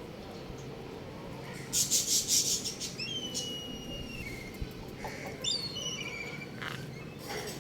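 Bird calls: a short rasping burst about two seconds in, then a clear whistled note held for about a second, and a quick run of high falling chirps and a trill near the end.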